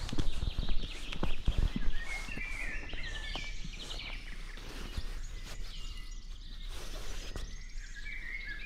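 Footsteps on a dirt trail for about the first two seconds, then birds singing in the surrounding trees.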